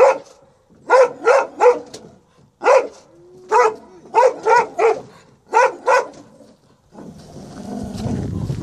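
Perro de Presa Canario barking sharply from inside a plastic travel crate, about a dozen barks in quick clusters of two or three, as a hand reaches toward the crate: protective guarding barks. A rushing noise rises near the end.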